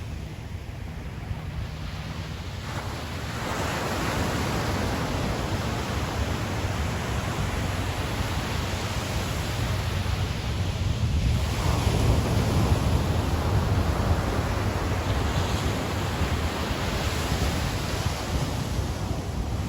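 Ocean surf breaking on a beach: waves swell and wash in about 3.5 s in and again about 11.5 s in, over a steady low rumble of wind on the microphone.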